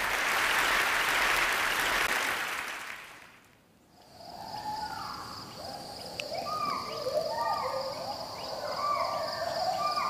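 Audience applause for about three seconds, fading out. Then a rainforest recording: a steady high cicada buzz under repeated rising and falling whooping calls of gibbons.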